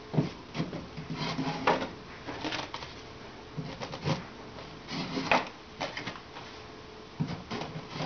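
Wooden beehive frames being slid into their slots in a wooden hive cabinet, giving irregular wooden knocks and short scrapes as each frame is pushed in.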